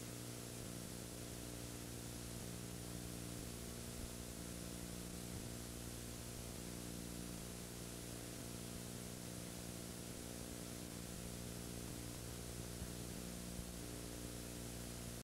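Steady electrical hum with a constant hiss, with no other sound on the track.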